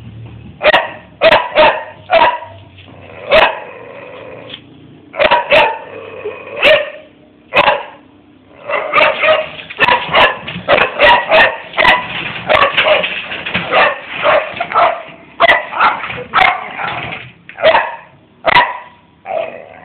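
Dog barking over and over: scattered single and double barks at first, then a long rapid run of barks, with a few more near the end.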